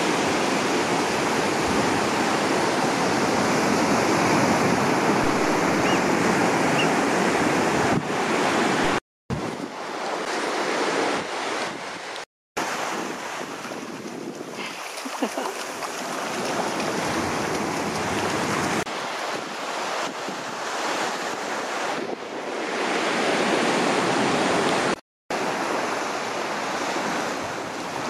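Sea surf washing onto a sandy shore and around rocks, with wind buffeting the microphone. The sound drops out briefly three times.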